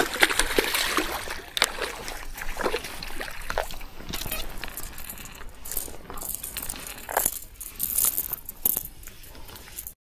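A hooked largemouth bass splashing at the water's surface as it is reeled in, with irregular light clicks and rattles throughout. The splashing is loudest in the first second.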